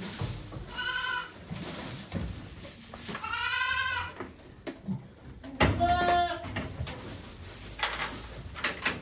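A goat bleating three times, the middle call the longest, with a few sharp knocks in between and near the end.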